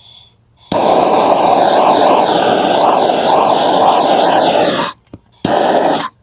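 Blowtorch flame running in blasts, charring the surface of a carved wooden bear. There is a brief puff at the start, one long blast of about four seconds, then a shorter blast near the end.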